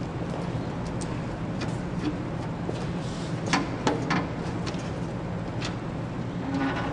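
Steady low hum of room machinery or ventilation, with a few sharp light clicks from wires and a small tool being worked into a terminal block.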